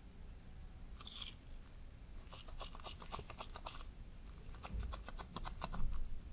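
Wet, bubbly whole wheat ciabatta dough being pinched and pulled with a gloved hand: sticky crackling as gas bubbles in the risen dough pop. A short crackle about a second in, then a dense run of clicks and pops from a little past two seconds, with a couple of soft low thumps near the end.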